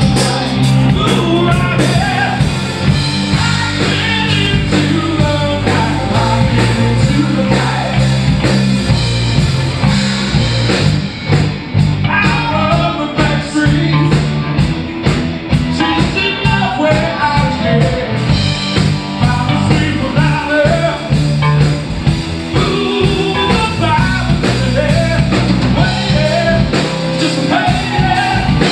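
Live rock band playing: two electric guitars, electric bass and drum kit, with a sung lead vocal over a steady beat.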